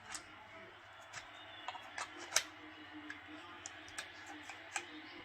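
Brass .223 cartridges being clicked one at a time into a Pro Mag 65-round AR-15 drum magazine: a string of sharp, irregularly spaced metallic clicks, the loudest about two and a half seconds in.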